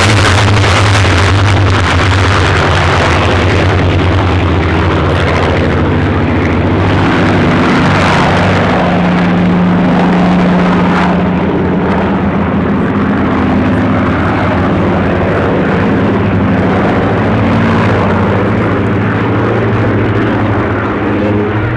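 Supermarine Spitfires' V12 piston engines running loud and steady as the fighters fly past and turn overhead, their engine note shifting in pitch as they pass.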